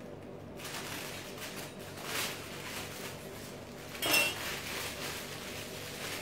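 Clear plastic piping bag rustling and crinkling as it is handled, then about four seconds in a short metallic clink as the metal palette knife meets the table.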